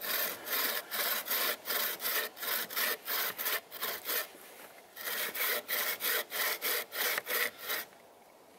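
Handmade bow saw with a wooden frame cutting a piece of wood in quick back-and-forth strokes, about two or three a second, with a brief pause about halfway before a second run of strokes. These are the first test cuts of the newly built saw.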